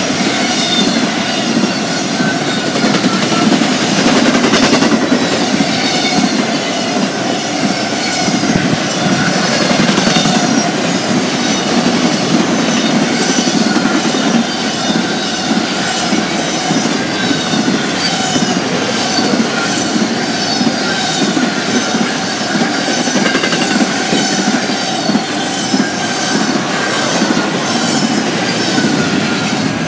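Cars of a BNSF intermodal freight train rolling past at speed: a steady rumble of wheels on rail, with repeated short high-pitched wheel squeals throughout.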